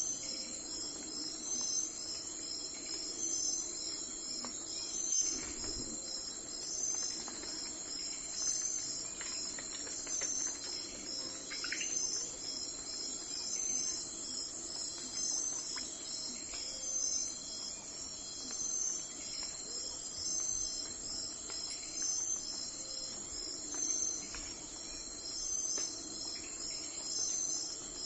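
Crickets chirping in a steady high-pitched chorus, with a pulsing pattern that repeats about every second and a half. A brief bird chirp comes about twelve seconds in.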